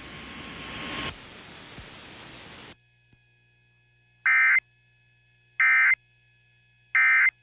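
Emergency Alert System end-of-message signal: three short, loud buzzy digital data bursts (the EAS EOM code), about a second and a half apart, after a few seconds of steady radio hiss.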